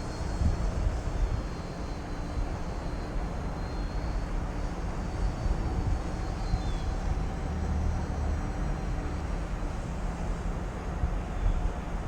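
Radio-controlled aerobatic plane's motor and propeller running in flight, their pitch rising and falling slightly with the throttle, under a gusty rumble of wind on the microphone.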